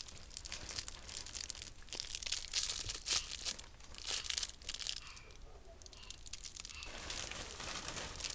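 Irregular rustling and crinkling, with a quieter stretch a little past the middle.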